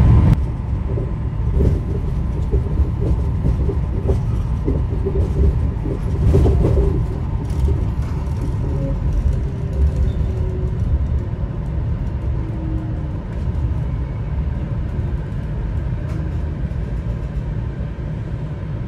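Chiba Urban Monorail suspended car running, heard from inside the front cab: a steady low rumble from its rubber-tyred bogies in the overhead track beam. About halfway through, a faint whine falls in pitch as the car slows into a station.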